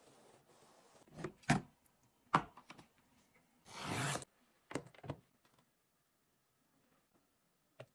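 A few sharp knocks and clicks, and about four seconds in a short rasping slice as a small knife cuts the packing tape along a cardboard box.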